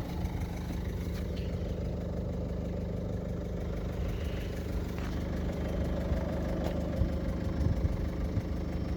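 A vehicle engine idling steadily, with a few faint clicks.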